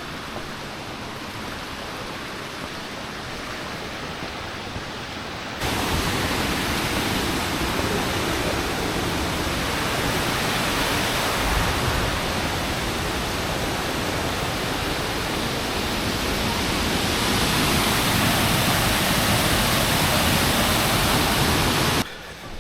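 Steady rushing roar of the Huangguoshu Waterfall's falling water. It jumps suddenly louder about six seconds in, swells a little more later, and drops off abruptly just before the end.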